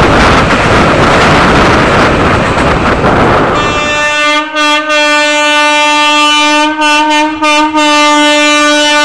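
A train running across a steel truss bridge makes a loud, steady rumble. About three and a half seconds in, this gives way to an electric locomotive's horn sounding one long blast of several tones at once, broken by a few short gaps.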